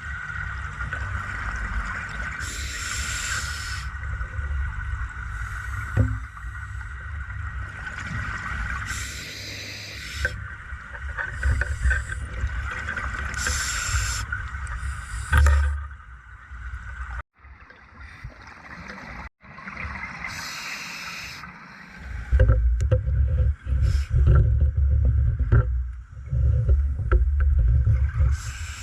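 Underwater sound of a scuba diver breathing through a regulator: a burst of exhaled bubbles every few seconds over a steady low rumble and a faint steady high hum. The low rumbling grows heavier and more uneven in the last several seconds.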